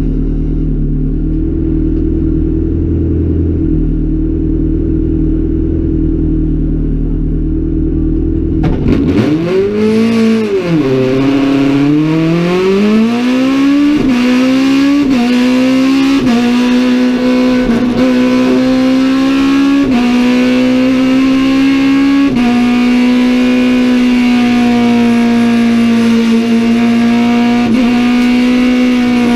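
Race car engine heard from inside the cockpit, running steadily for about nine seconds, then launching hard. It revs up through the gears, the pitch dropping suddenly at each quick upshift, and from about two-thirds of the way through it holds a steady high rev under full load.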